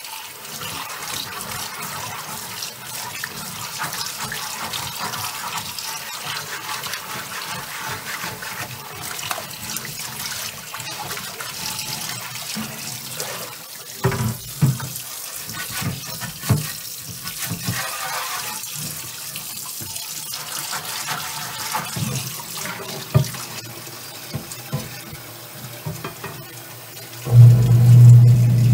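Kitchen tap running into a cast iron pan and a stainless steel sink while the pan is scrubbed by hand with a chain mail scrubber. A few knocks come about halfway through, and near the end a louder, low steady sound sets in as the pan is tipped up out of the water.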